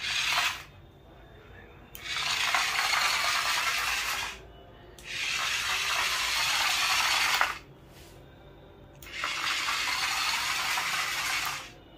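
Small geared DC motor and plastic gearbox of a converted toy truck whirring in bursts, switched on and off from a wired remote: one short burst at the start, then three runs of about two and a half seconds each.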